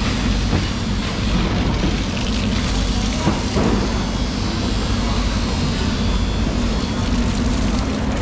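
Steady low machine rumble with water from a hose splashing on a wet concrete floor.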